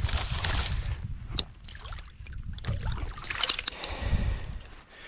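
Shallow muddy water sloshing and splashing as a gloved hand reaches in and lifts out a sprung trap, with water dripping off. Sharp clicks and clinks of the trap's metal come about three and a half seconds in.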